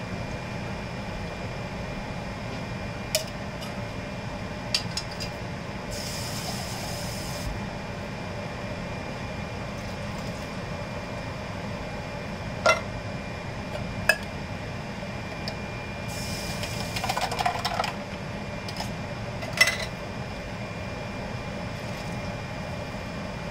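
Kitchen cooking noises: a handful of sharp clinks and knocks from a metal pot and cans, and two hissing rushes each about a second and a half long, over a steady background hum.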